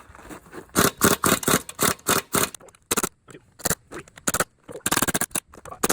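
Metal striking the steel clamps of a five-spoke Dayton wheel to knock the wedged locking collars loose from the hub: a rapid run of sharp metal-on-metal blows in quick clusters, with short pauses between.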